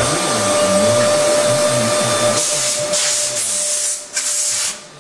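Jig grinder's vacuum system running with a steady whine. From about halfway through there are several bursts of loud rushing air hiss, and the sound drops away sharply just before the end.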